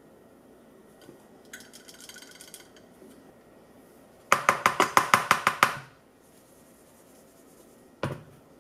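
A metal measuring cup rapped quickly against the rim of a stainless steel mixing bowl, about ten ringing clanks in a second and a half, knocking the flour out of the cup. It is preceded by faint light tapping and followed near the end by a single duller knock.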